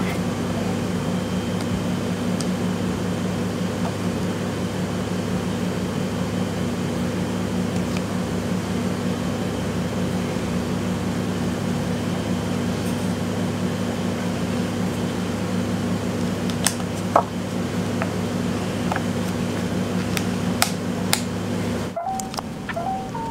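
Steady mechanical hum of kitchen machinery, with a few light clicks of clear plastic dessert cups and lids being handled in the last several seconds.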